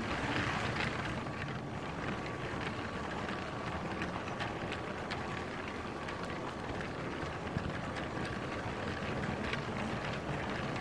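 Lego train motor running steadily with a faint whine, wheels rattling along plastic track, and scattered sharp clicks throughout.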